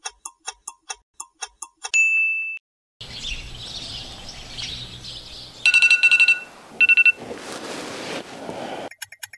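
Rapid ticking, about four or five ticks a second, ending in a single bell-like ding; then birds chirping, then an electronic alarm beeping in fast loud pulses twice, the sign of a morning wake-up alarm going off. Near the end the quick ticking starts again.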